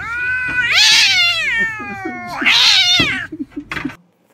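Calico cat yowling: two long, drawn-out meows, the first long and bending up then down in pitch, the second shorter, followed by a few faint clicks.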